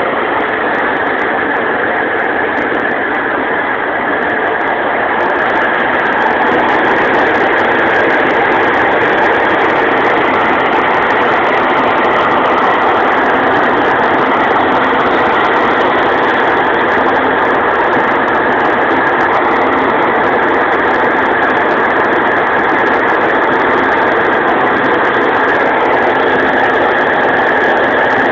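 Steady running of a Fortschritt E514 combine harvester and the tractor beside it, the combine's unloading auger pouring oats into the trailer. Slightly louder from about five seconds in.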